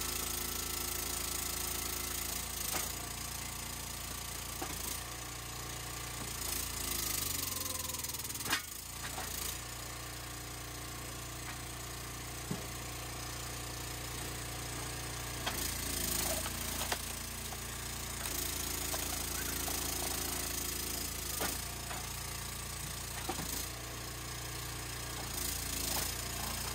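A small engine running steadily at idle, with a sharp knock about eight seconds in and a few lighter clicks and knocks.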